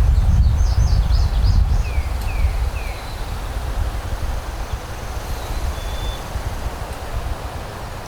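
Wind buffeting the microphone as a heavy low rumble, strongest in the first three seconds, with small songbirds singing over it: a quick run of high notes, then three downward-sliding whistles, and a single short whistle later.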